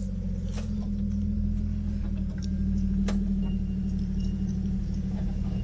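Off-road 4x4's engine running steadily at low revs while crawling up the track, with a couple of sharp clicks.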